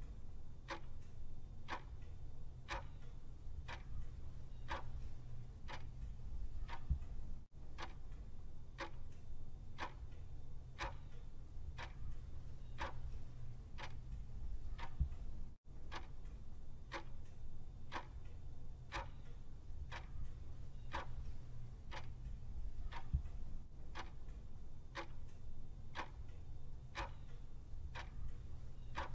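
Clock ticking as a countdown-timer sound effect, about one tick a second, over a low steady hum.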